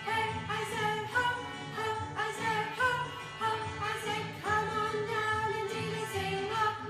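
A song with singing over instrumental backing, changing notes over a steady beat.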